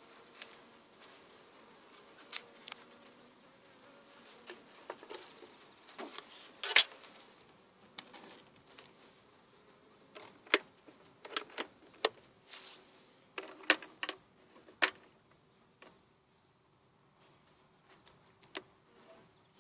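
Honey bees buzzing faintly around an open wooden hive, broken by sharp knocks and clicks as the wooden lid is set on and the metal side latches are fastened; the loudest knock comes about seven seconds in, with a run of clicks a few seconds later.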